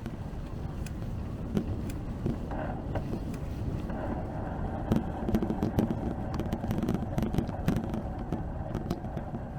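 Bicycle ride noise: a steady low rumble with frequent light clicks and rattles, and a hum that builds from about four seconds in and eases near the end, like a motor vehicle passing.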